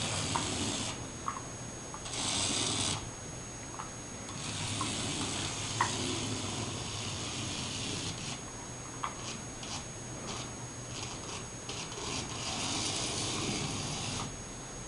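A cat scuffling with a toy mouse on the floor: rubbing, scraping noise in several bursts lasting from under a second to about four seconds, with a few light clicks between them.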